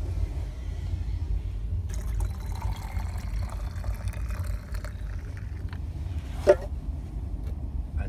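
Water being poured into a teapot to make tea: a splashing fill from about two seconds in, lasting about three seconds, over a steady low rumble. A short, sharp sound about six and a half seconds in is the loudest moment.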